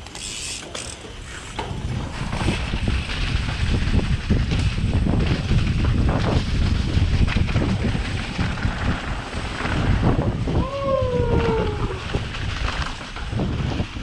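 Mountain bike descending a dirt trail at speed: wind buffeting the microphone, tyre rumble and frequent knocks and rattles from the bike, louder after about two seconds. A short falling tone is heard about eleven seconds in.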